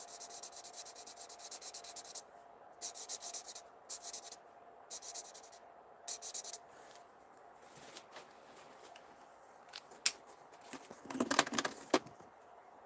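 Alcohol-marker tip scratching over paper in short colouring strokes, several separate bursts in the first half. Near the end a louder rustle as the sheet of paper is slid across the craft mat.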